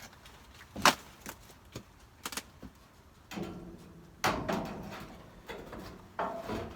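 A thin 0.5 mm steel box-profile cladding sheet being handled: a few sharp knocks, then longer rattling, scraping sounds from the metal sheet, about three and a half, four and a half and six seconds in.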